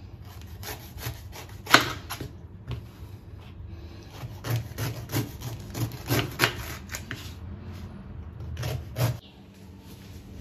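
Kitchen knife cutting through a raw jackfruit's tough, spiky rind on a wooden cutting board: a run of short cutting strokes and knocks of the blade on the board. The strongest stroke comes about two seconds in, and the strokes stop about nine seconds in.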